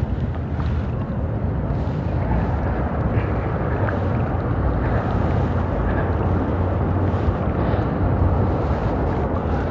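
Steady wind rumbling on the microphone over the wash of water around a kayak out on open water.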